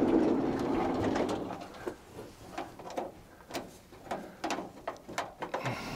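Light clicks and knocks of a sliding-door latch cable and mechanism being handled inside the door panel, after a louder low sound in the first second and a half.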